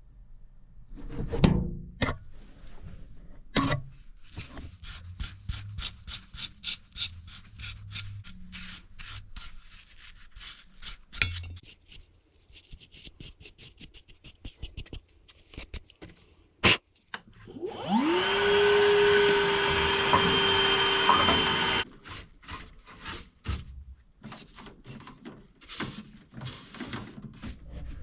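Hand-tool and panel-handling noises while a furnace is serviced: clicks, a quick run of ticking and a sharp knock. A motor then spins up with a rising whine, runs steadily for about four seconds and cuts off suddenly.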